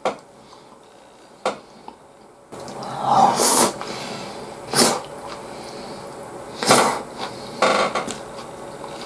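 Close-miked eating of gyudon with chopsticks from a plastic takeout bowl: two sharp clicks of chopsticks on the bowl, then four short slurps and mouthfuls of beef and rice taken every second or two.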